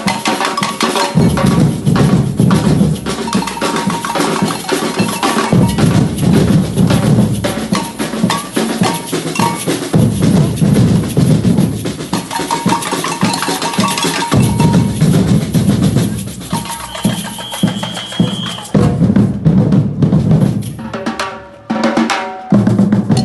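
Samba reggae played by a batucada drum ensemble: deep surdo bass drums pulse under snare drums in a dense, steady groove. A steady high tone sounds for about a second and a half past the middle. Near the end the drumming drops away briefly, then comes back in strongly.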